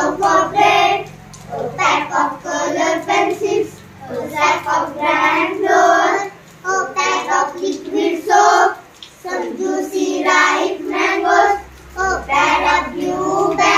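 Children singing an English action poem in short phrases with brief pauses between them.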